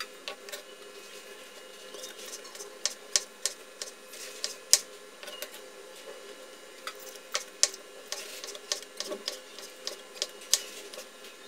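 Kitchen knife slicing soaked shiitake mushrooms on a wooden chopping board: irregular sharp taps of the blade against the board, often in quick runs of several.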